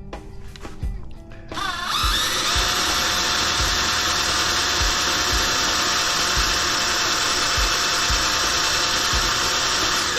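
A few light knocks, then an electric drill fitted with a new 1/4-inch bit spins up with a rising whine about a second and a half in and runs steadily and loudly.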